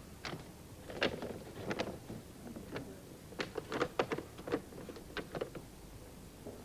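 A string of light, irregular clicks, taps and knocks, about a dozen over the first five seconds, from shadow puppets and their rods being handled behind the screen as a show begins.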